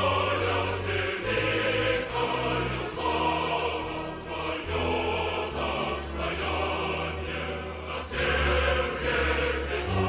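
Choral music: a choir singing sustained chords that change every second or so over steady low bass notes.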